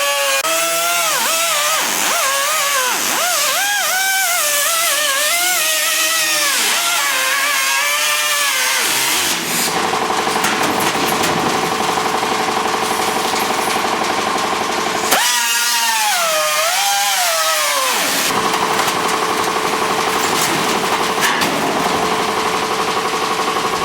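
Electric power tool cutting a sheet-metal patch, with a steady hiss of cutting. Its motor whine wavers up and down as it bogs and recovers under load, settling into a steadier tone about nine seconds in and again near the end.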